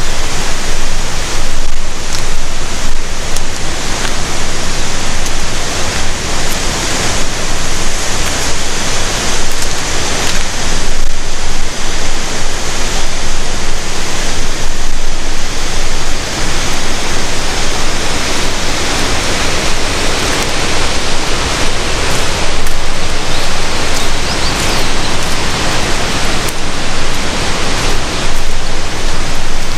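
Loud, steady rush of falling and flowing water.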